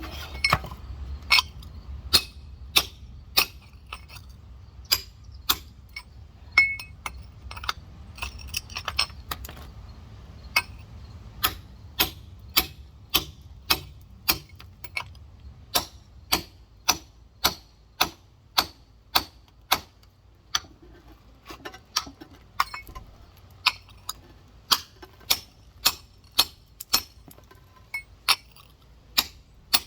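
Beat-up rock hammer tapping on a giant geode in a steady run of sharp strikes, about one and a half a second, working a crack into the stone to split it open.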